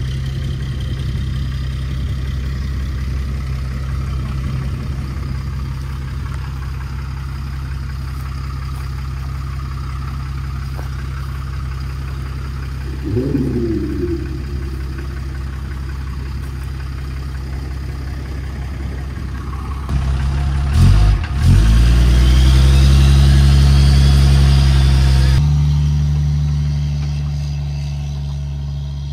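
Boat motor running steadily, then opening up about two-thirds of the way in, louder with a rising whine, before dropping back and fading near the end.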